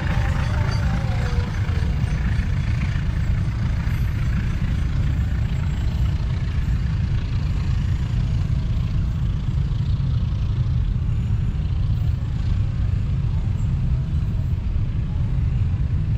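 Steady low rumble of passing vehicles.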